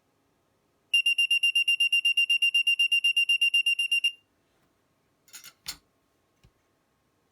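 Active piezo buzzer of a homemade LM358 fire-alarm circuit sounding a rapid, high-pitched beeping, about ten beeps a second, for about three seconds, then stopping: the thermistor has passed the trip temperature set by the trimmer and the alarm is triggered. A couple of short clattering knocks follow near the end.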